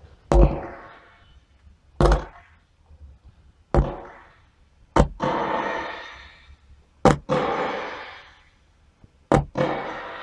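A series of six sharp knocks or strikes on some object, roughly every one and a half to two seconds. Each hit rings out in a decaying tail, and the later hits come as a quick double strike.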